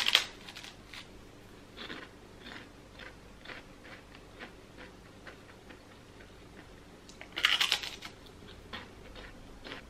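Caramel-flavoured puffed rice cake bitten with a loud crunch at the start and again about seven seconds in, with faint crunching as it is chewed in between.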